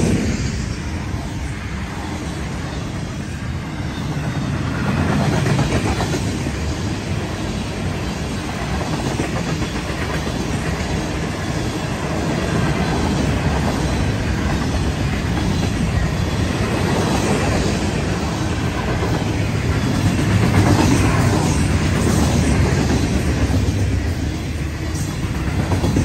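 Freight train rolling past at speed: a continuous rumble of steel wheels on the rails, its loudness swelling and easing as the cars go by.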